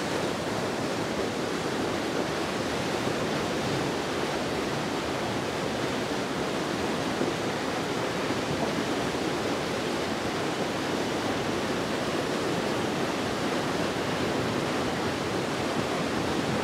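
Floodwater pouring through the wide-open sluice gates of a river weir and tumbling below them: a steady, even rush.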